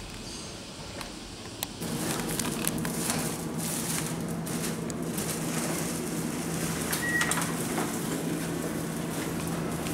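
Train-station ambience: quiet at first, then from about two seconds in a steady low hum with scattered faint clicks and rustles. A short high beep sounds a little after seven seconds.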